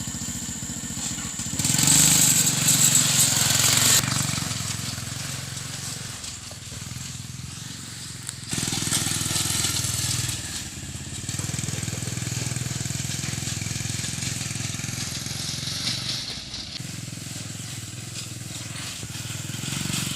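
Engine of a grakula, a small motorised oil palm fruit carrier, running under changing throttle. It revs up hard for a couple of seconds early on, eases off, then picks up again about eight seconds in.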